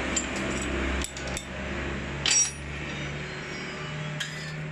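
Small metal parts and a spanner clinking and tapping against each other as diesel injector parts are handled on a workbench. There are a few separate clinks, and the loudest, about two and a half seconds in, rings briefly. A steady low hum runs underneath and fades out after about three seconds.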